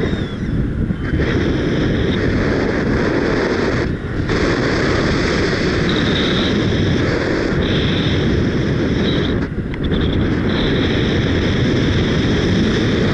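Strong wind buffeting an action camera's microphone during paraglider flight, a loud, steady rush with short dips near 4 and 9.5 seconds. A high steady tone comes and goes several times over the rush.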